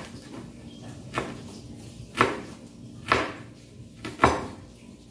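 Kitchen knife chopping on a cutting board: four separate knocks about a second apart.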